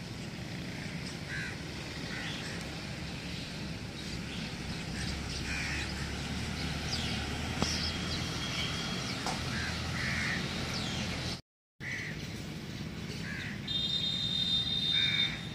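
Crows cawing every second or two over a steady outdoor background hum, with a brief break in the sound about three-quarters of the way through.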